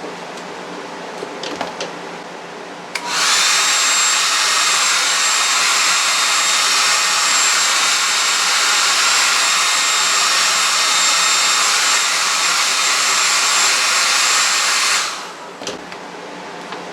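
Hand-held hair dryer switched on about three seconds in, blowing steadily and loudly with a thin high whine, then switched off about twelve seconds later. It is heating tape on the back of a poster to loosen the adhesive.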